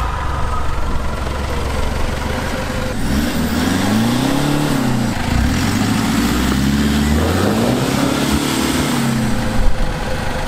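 4WD engine under load in soft sand, the revs climbing and dropping back twice as the vehicle struggles for traction on a steep sandy slope, with a sharp knock near the end.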